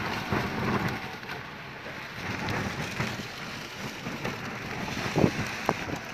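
Rain and wind in a strong storm, a steady rushing noise, with a couple of sharp knocks a little past five seconds in.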